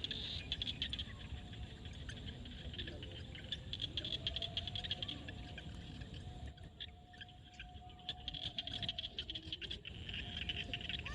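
Chorus of frogs calling in rapid, repeated pulses, thinning briefly in the middle, with a long steady lower note running through the middle.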